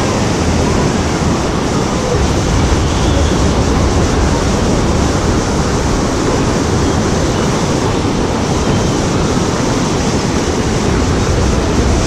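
Whitewater rushing through the channel of a river rapids raft ride, a steady, unbroken wash of churning water.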